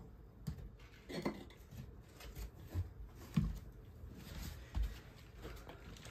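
A few soft, irregular thumps and small clatters of someone moving about at a table and handling things.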